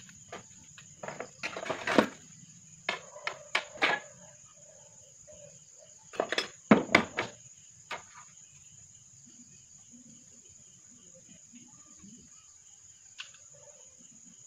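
Pliers and steel wire being worked by hand: clusters of sharp metallic clicks and scrapes, the loudest about two seconds in and again around seven seconds in, with a single click near the end. A steady high-pitched tone sits behind throughout.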